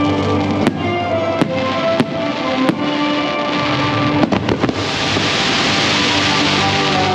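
Fireworks bursting over the show's music soundtrack: about six sharp bangs come in the first four and a half seconds, then a steady hiss fills in from about five seconds in.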